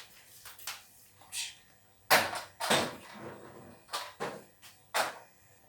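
A few sharp clacks and knocks of kitchenware handled at the stove, spaced irregularly, the loudest about two seconds in.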